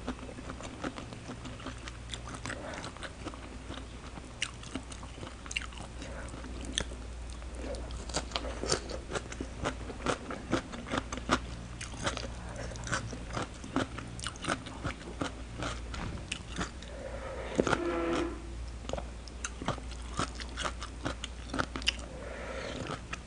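Close-miked crunchy chewing of a sour green-mango salad: irregular crisp crackles and wet mouth clicks, eating-show style. A short vocal sound from the eater comes about three-quarters of the way through.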